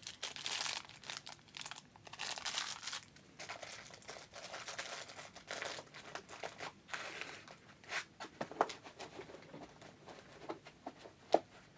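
Drone parts being unwrapped from their packaging: irregular rustling and tearing of the wrapping for the first several seconds, then a scatter of short, sharp clicks and taps as small pieces are handled.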